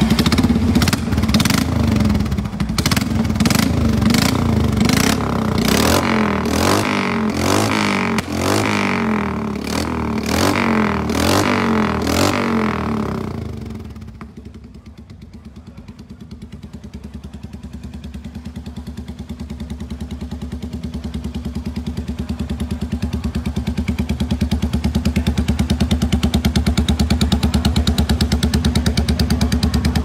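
Royal Enfield Meteor 350's single-cylinder engine, fitted with a custom handmade single-bend exhaust, revved in quick repeated throttle blips about twice a second. About fourteen seconds in it drops back to a steady idle, which grows louder toward the end.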